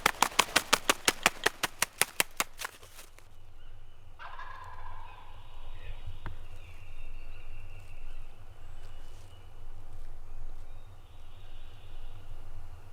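Wild turkey calling close by: a loud, fast, rattling run of sharp notes that ends about three seconds in. Fainter, steady high tones follow.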